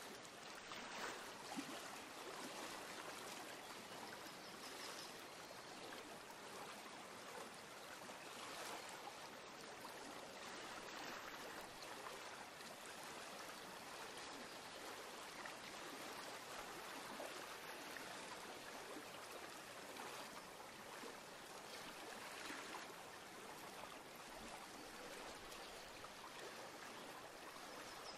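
Faint steady rushing noise inside a turboprop airliner's cabin in flight.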